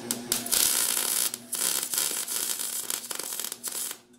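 Wire-feed (MIG) welder arc crackling and sizzling as a bead is laid on the steel end of a lawn roller, in runs with a few short breaks; the arc stops just before the end.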